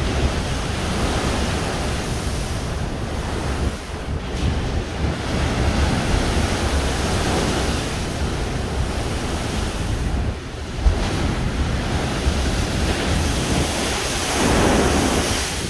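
Storm surf breaking against a seawall and throwing up spray, under strong wind that buffets the microphone with a low rumble. A louder surge comes near the end.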